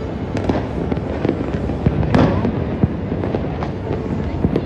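Fireworks display: a continuous barrage of overlapping bangs and crackles from bursting aerial shells, with one louder bang about two seconds in.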